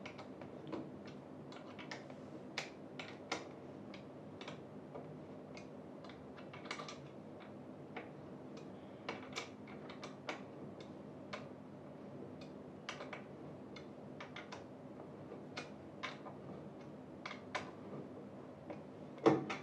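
Irregular light clicks and ticks of a hand tool working screws tight on the chair's footrest fittings, with one louder knock near the end.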